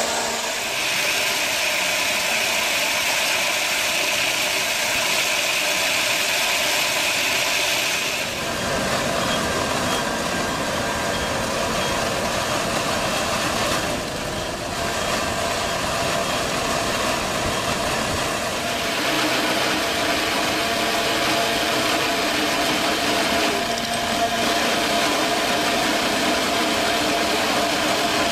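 Log-sawing machine on a rail carriage running steadily as it cuts along a large log, a continuous mechanical whine with cutting noise. The sound shifts abruptly about a third of the way in, and again around the middle and two-thirds through.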